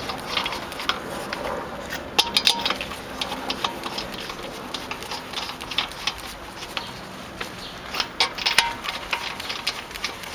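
Scattered metallic clicks and clinks as a rear wheel goes back onto the hub and its lug nuts are put on, with bunches of clicking about two seconds in and again about eight seconds in.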